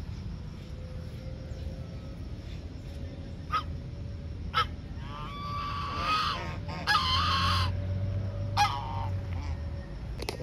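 White domestic goose honking: two short calls, then two longer, drawn-out honks and a last short one.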